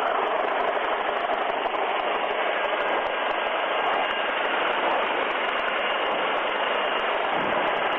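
Steady, unbroken rotor and turbine noise of a Coast Guard rescue helicopter in a low hover, heard band-limited through the crew intercom.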